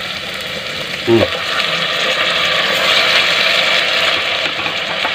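Onions and vegetables sizzling in oil in a stainless steel pot. The sizzle grows louder about three seconds in as raw chicken pieces go into the pot. A brief voice-like sound is heard about a second in.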